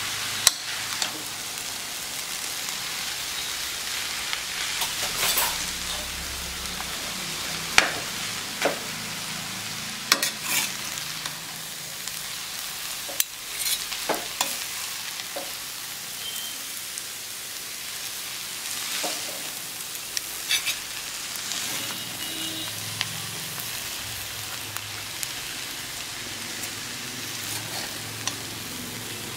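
Noodles sizzling in a hot steel wok as they are stir-fried and tossed with a metal skimmer ladle and spoon, with a steady hiss and sharp clinks of metal on the pan every second or two.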